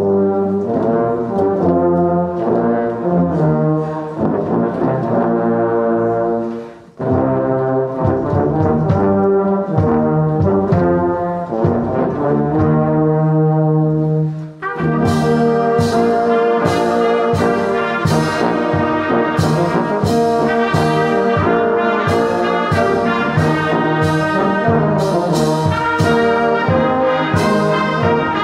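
A brass band of trumpets, trombones, tubas and sousaphone, with flutes and clarinets, playing a hymn. There is a brief break about seven seconds in. About halfway through, the band comes back in fuller, with a regular beat of sharp percussive hits.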